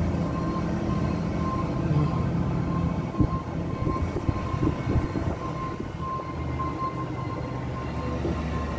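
Flatbed tow truck's engine running with a steady low rumble as it moves slowly, heard muffled from inside the pickup cab riding on its bed. Scattered knocks and rattles come between about three and five seconds in.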